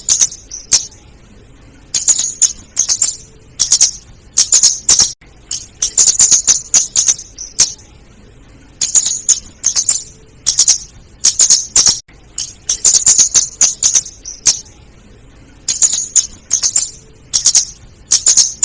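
Female scarlet-headed flowerpecker (cabe jawa) calling: rapid, high, sharp ticking notes in bouts of about a second, with short pauses between. This is the female's lively call, played as a lure to draw in small birds.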